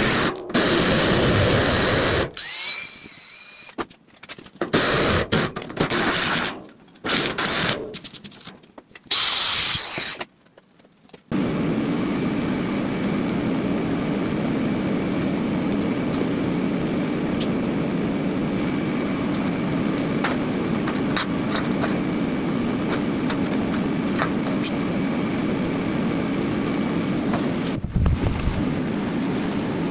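Cordless drill boring through the sheet-steel wall of a plasma table's water tray in short, choppy bursts, with a brief rising motor whine near the start. After about eleven seconds there is a steady, even machine whir with faint ticks.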